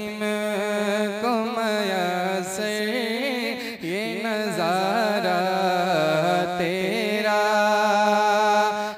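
A man singing a naat (devotional Urdu hymn) into a microphone, drawing out a melismatic passage: wavering, ornamented runs with a short breath about four seconds in, then long held notes.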